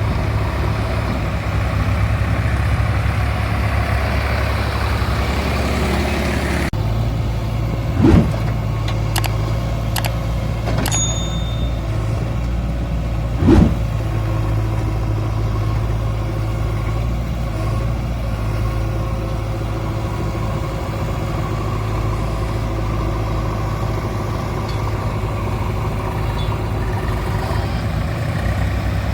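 Diesel engine of heavy machinery running steadily at low revs, with a sudden change in its sound about seven seconds in. Two short loud thumps come about eight and thirteen and a half seconds in.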